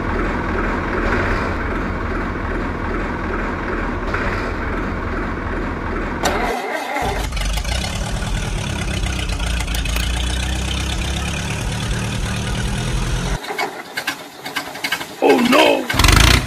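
Tractor diesel engine sound effect idling steadily. It cuts out briefly about six and a half seconds in and starts again, then drops away near the end, leaving scattered clicks and a short wavering tone before returning loud.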